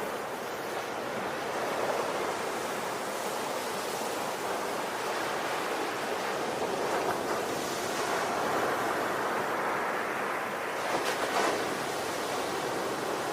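Ocean surf: a continuous rushing of waves that swells and eases, with a brighter splash of a breaking wave about eleven seconds in.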